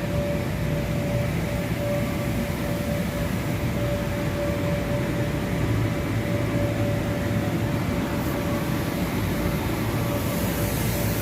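Steady drone of electric inflatable blowers: a constant low rumble with a steady hum running through it.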